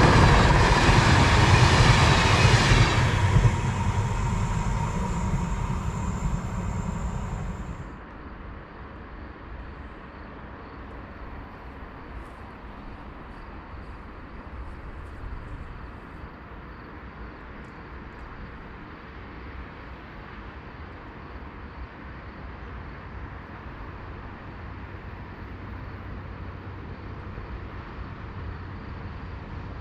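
Electric train passing close on the rails, loud at first, then receding and fading out about eight seconds in, leaving a low steady background.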